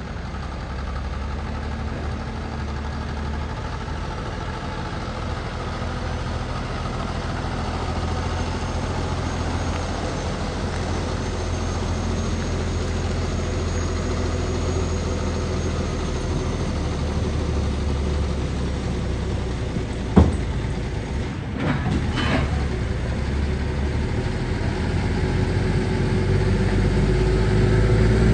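Heavy-haulage truck diesel engines running at low speed, pulling a multi-axle low-loader with a locomotive aboard, the drone growing louder as the rig comes closer. A single sharp knock about twenty seconds in.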